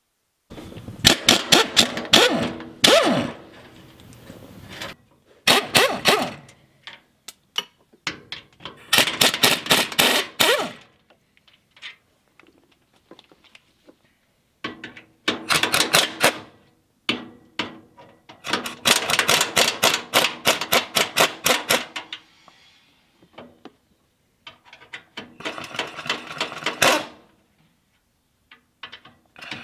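Pneumatic impact wrench hammering on bolts under a truck's front end, about seven bursts of rapid rattling, each about one to three seconds long, with short pauses between. The bolts are being undone to take off front-end parts.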